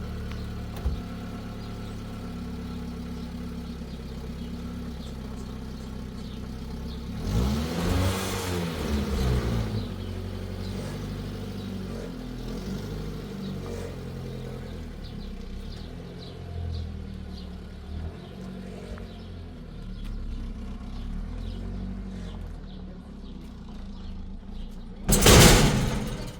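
A vehicle engine running steadily at low revs, revving up and back down about eight seconds in. A loud rush of noise lasting about a second comes near the end.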